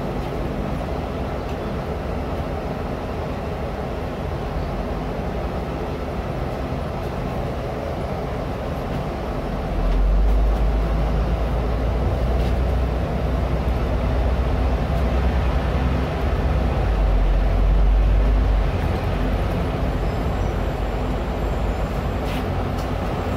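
Neobus Mega BRT articulated bus driving along, heard from inside the passenger cabin: a steady engine drone mixed with road noise. About ten seconds in, a deeper, louder rumble comes in and lasts for about nine seconds before dropping back.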